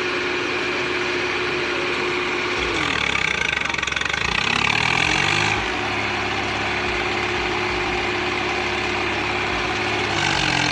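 Swaraj 855 tractor's three-cylinder diesel engine revved up and held at high revs. It drops back about three seconds in, then revs up again and holds until it falls away near the end.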